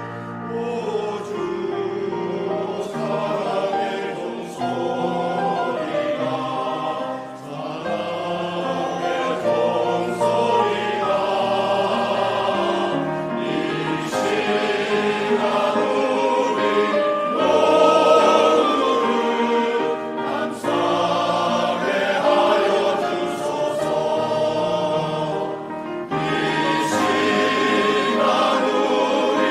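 Mixed-voice church choir singing a Korean hymn in phrases with short breaks, with piano accompaniment.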